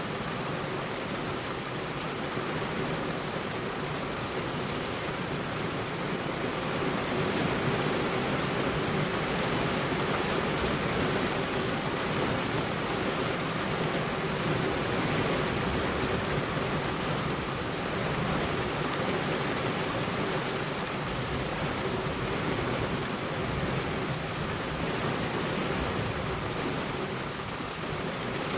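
Heavy rain falling steadily on a road, a dense, even hiss of rain with no thunder.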